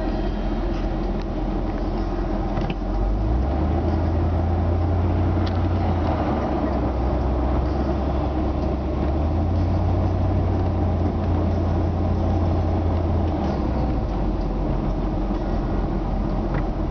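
A 1985 Ford F-150's 5.8-litre V8 and road noise heard inside the cab while driving, a steady low drone. The drone grows deeper and stronger about three seconds in and drops back a few seconds before the end.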